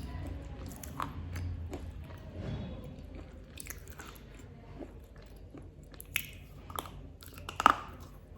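Close-miked chewing and crunching of a black KitKat chocolate wafer, with scattered crisp crackles and one loud crunch near the end.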